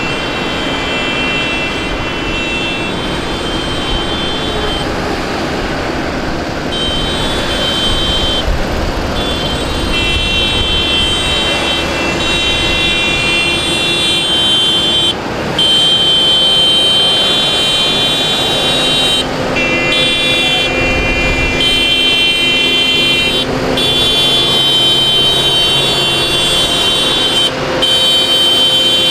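A column of farm tractors drives past with diesel engines running. Horns honk over them in long, repeated blasts, held for several seconds at a time with short breaks, and are louder in the second half.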